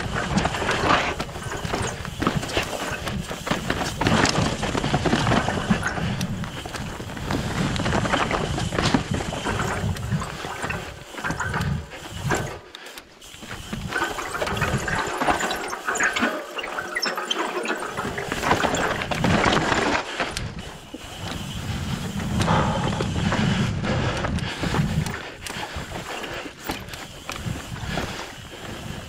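Mountain bike ride noise on rock slabs: tyres rolling and scrubbing on rock, the bike rattling and clicking over bumps, with wind rumbling on the microphone. It goes quieter for a few seconds around the middle.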